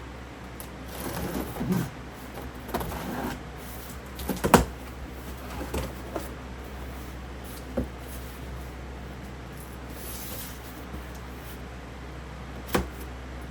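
A cardboard box and the box fan inside it being handled: rustling and scraping, one sharp knock about four and a half seconds in, then scattered clicks and a louder knock near the end, over a steady low hum.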